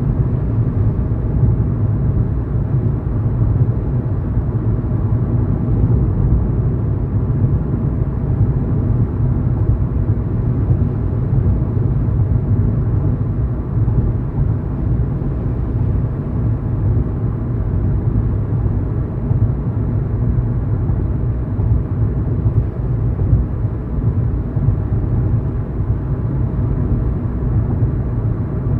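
Steady low rumble of a car driving at road speed, engine and tyre noise picked up by a dashcam inside the cabin.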